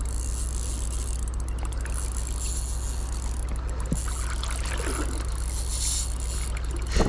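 Steady low rumble and rush of a high, flowing river, with a short knock about four seconds in and a sharper one near the end.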